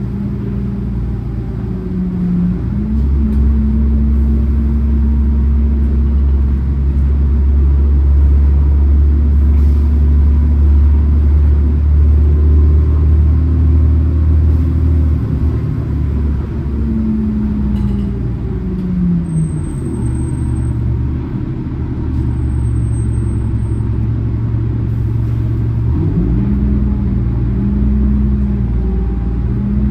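Orion VII city bus heard from on board while under way: a steady low drivetrain rumble whose pitch falls as the bus slows a little past the middle, then climbs again as it pulls away near the end. A faint high whine comes and goes twice in the second half.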